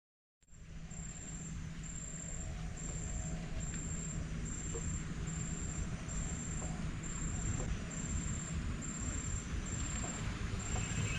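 An insect chirping in a steady, even pulse of thin high-pitched notes, about one a second, over a low steady hum and outdoor background noise. It starts about half a second in, after a brief gap.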